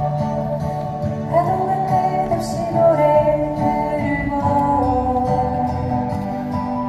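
Guitar playing a slow song, with a woman's singing voice coming in about a second in.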